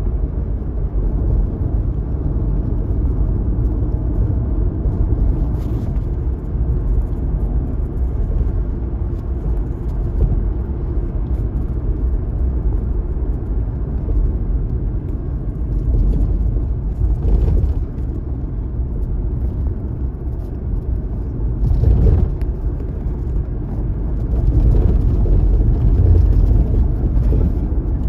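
Steady low rumble of road and engine noise heard inside a moving car, with short swells of louder noise a few times and a louder stretch near the end.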